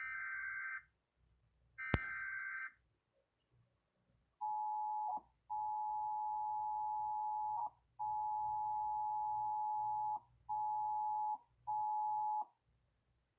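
Emergency Alert System tones: two short bursts of SAME digital header data, with a sharp click during the second, then the EAS two-tone attention signal, a steady dual-pitched tone that is broken into five segments by short gaps. This is the signal that an emergency warning message is about to be read.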